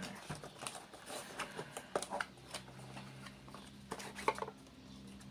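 Packaging being torn open and handled by hand: scattered irregular clicks, taps and rustles, the loudest about two seconds and four seconds in.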